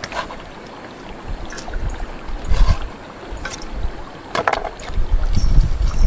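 Wind buffeting the microphone as a deep, uneven rumble that grows strong near the end, with a few scattered clicks and knocks, the loudest about two-thirds of the way through.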